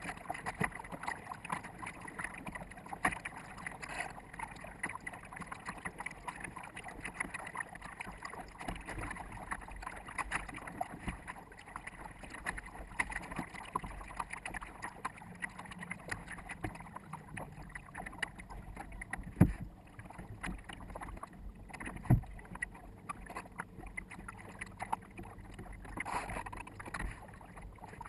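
Water rushing and slapping against the bow of a sailboat under way, with a constant crackle of spray and some wind on the microphone. Two sharp knocks stand out about two-thirds of the way through, a few seconds apart.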